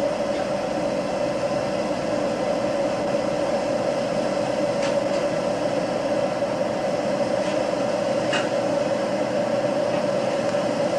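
Steady hum and hiss with no speech, broken by a few faint light clicks as a small steel pin is worked by hand into a hole in the undercut tool's steel shaft.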